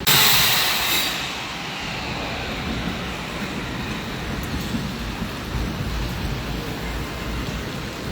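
Steady rain falling, an even hiss of noise. It opens with a louder hissing rush that fades over about a second.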